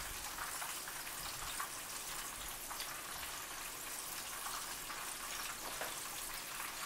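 A pork chop frying in hot oil in a pan, a faint steady sizzle with light scattered crackles.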